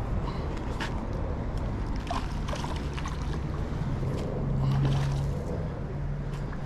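Wind buffeting the microphone with a low rumble, and a steady low hum that comes in partway through, loudest around the middle, with a few short clicks or splashes.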